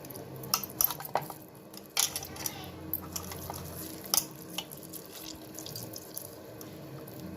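Water splashing and dripping as freshly curdled chhena is rinsed and squeezed out by hand, with irregular sharp splashes over a steady hiss.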